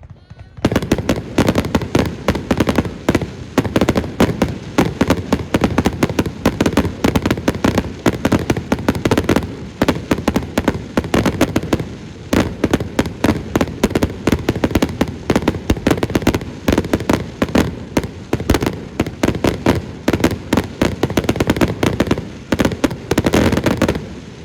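Aerial fireworks going off in a dense, continuous barrage of many sharp bangs and crackles every second. It starts about half a second in and stops just before the end, leaving a short fading echo.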